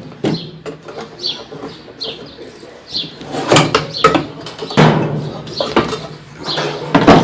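Irregular knocks, clunks and scraping rattles of metal and plastic washing-machine parts being handled and shifted during disassembly of the machine's mechanism, with several louder knocks about a second apart.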